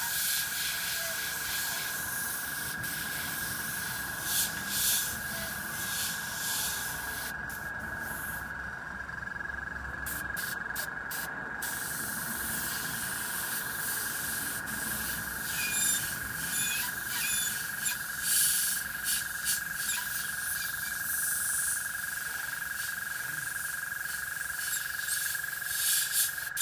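Airbrush hissing in short, repeated sprays as the trigger is worked for fine detail, with a pause of a few seconds about eight seconds in. A steady high-pitched tone runs underneath.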